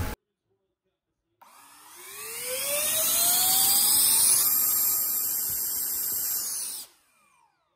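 Twin 40 mm electric ducted fans of an E-flite F-14 spooling up under throttle. A whine starts about a second and a half in and rises in pitch for about three seconds, holds at high speed, eases slightly, then cuts off suddenly.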